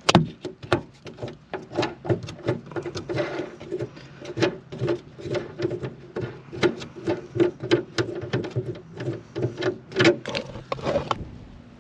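Plastic finger wing nuts on a car taillight assembly being unscrewed by hand: a run of quick, irregular clicks and rattles, several a second, with a faint squeak from the threads.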